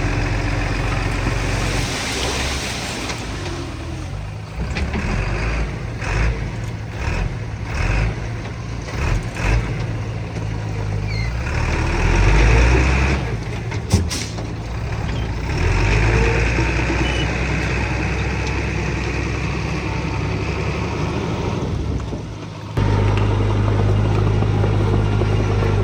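Diesel engines of a small bulldozer and a dump truck running under working load, rising and falling. There is a single sharp knock about halfway through, and near the end the engine sound dips abruptly and comes back steady and louder.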